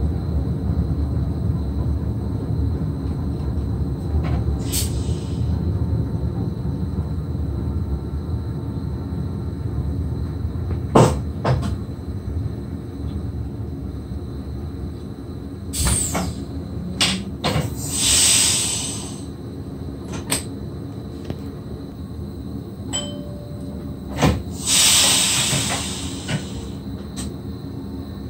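Inside the cab of an SGM Sprinter electric multiple-unit train on the move: a steady low rumble of the running train. Several sharp clicks and two hissing bursts about a second long come over it, one near the middle and one near the end.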